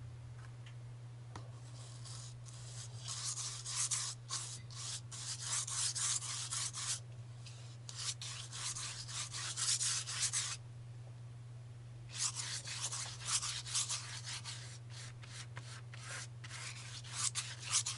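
Flat bristle brush rubbing back and forth across paper, spreading a coat of interior paint to prime the paper for oil painting. The quick scrubbing strokes come in two runs with a pause of about a second and a half between, over a steady low hum.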